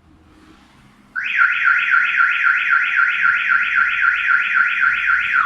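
Viper aftermarket car alarm siren set off by its panic button, starting suddenly about a second in with a loud, rapid rising chirp repeated about five times a second, then switching to a lower-pitched tone near the end.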